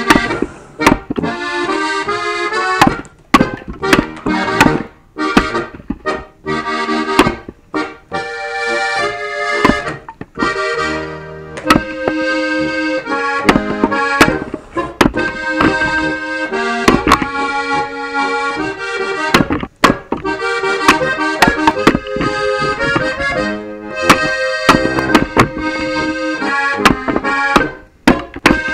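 Accordion music in a traditional style, cut at intervals by the sharp knocks of an axe splitting firewood rounds.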